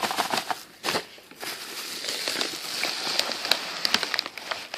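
Packaging crinkling and crackling with many sharp little clicks as surprise eggs are handled and pulled out of a box.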